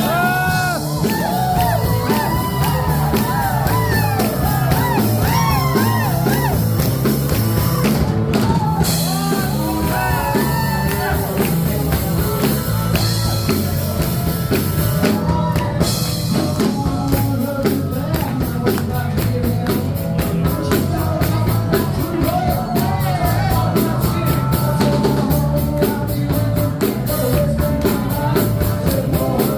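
Rock music with a singing voice and a steady drum beat.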